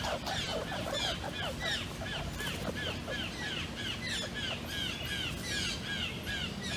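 Red squirrel calling, a long run of short, sharp chirps repeated at about four a second.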